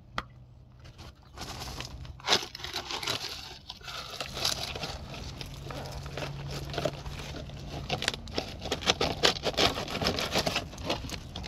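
Plastic bucket form being pried and pulled off a cured concrete block: repeated crackling, creaking and scraping of the plastic against the concrete, busiest in the last few seconds. A low steady hum runs underneath and stops about eight seconds in.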